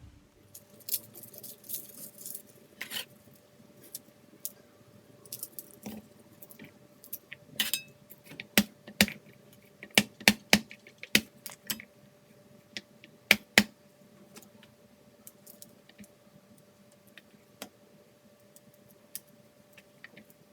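Knife chopping vegetables on a cutting board: irregular sharp strikes, sparse at first, then a quick cluster of louder chops through the middle before thinning out again.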